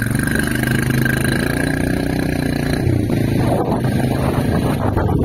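Small motorcycle engine running as it pulls away with a passenger aboard, its note breaking briefly about three seconds in. Wind rush on the microphone grows toward the end.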